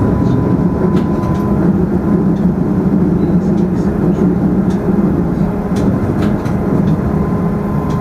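Munich S-Bahn class 423 electric multiple unit running at speed through a tunnel, heard from the driver's cab: a steady rumble of wheels on rail with a hum and a higher steady tone from the traction equipment, and a few short clicks.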